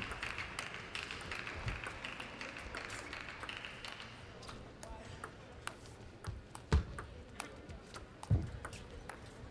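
Table tennis ball clicking off bats and the table in a rally, a sharp tick every half second or so from about four seconds in, with a couple of low thumps from the players' feet on the floor. Background crowd noise fades out over the first few seconds.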